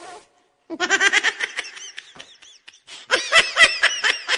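High-pitched laughter in rapid short bursts, starting about a second in, dying down briefly and coming back louder near the end.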